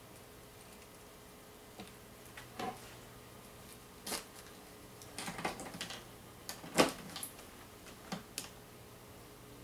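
Scattered light clicks and knocks as a power cord with a cigarette-lighter plug is handled and laid down, the loudest knock about two-thirds of the way through.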